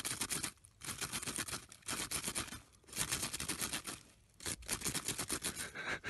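Arctic fox digging and scratching in packed snow with its forepaws, in about five bursts of rapid scrapes separated by short pauses.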